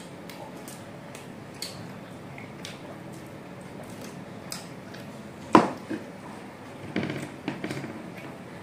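Tableware sounds of a meal eaten by hand: faint clicks of fingers and food against a plate, one sharp knock about five and a half seconds in, and a short run of clatters near the end.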